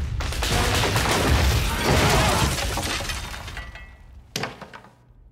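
Floor collapsing beneath a laden banquet table, which crashes through to the storey below: a sudden loud crash of breaking structure and smashing dishes, with debris rumbling and pouring down for about three seconds before dying away. One last thud about four seconds in.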